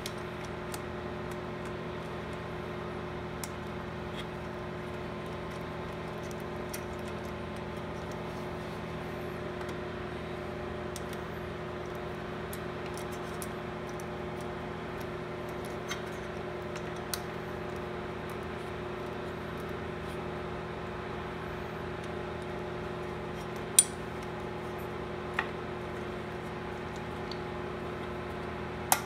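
A few sharp metallic clicks and taps of a socket and extension against the ignition coil and its mounting bolts on a small engine, the loudest near the end, over a steady low hum.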